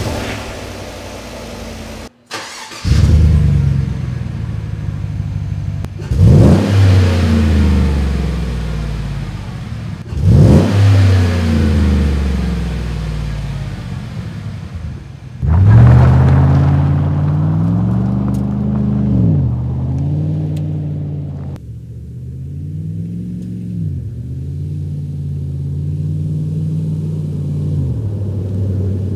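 A 2014 Chevy Silverado's engine heard through its factory exhaust: it starts about three seconds in and is revved in sharp blips, each climbing and falling back. The last rev is held longer. Then a steadier engine note rises and falls as the truck drives.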